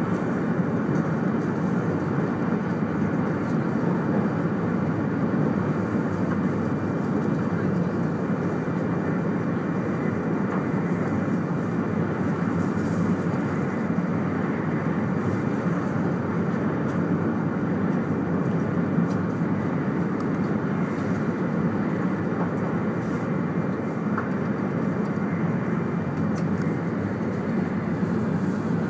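Steady running noise inside a 200 series Shinkansen car travelling at speed: an even rumble that holds the same level throughout.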